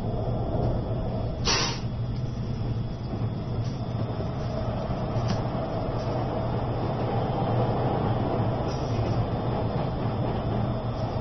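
E653 series electric train heard from inside the car, running slowly under a strong-wind speed restriction: a steady rumble with a low hum, a short hiss about a second and a half in, and a few faint clicks.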